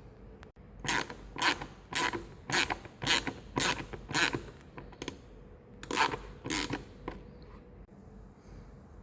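Hand ratchet clicking in about ten short strokes, roughly two a second, with a pause before the last two.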